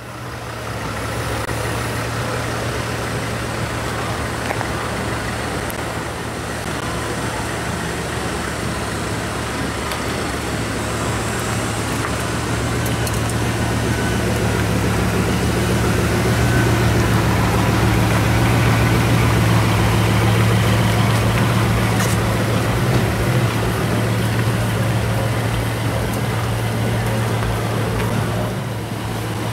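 Bugatti Veyron 16.4 Grand Sport's quad-turbo W16 engine idling steadily, getting a little louder about halfway through.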